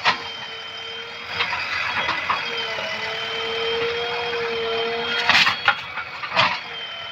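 JCB backhoe loader running with a steady whine that wavers slightly in pitch, and two sharp knocks near the end.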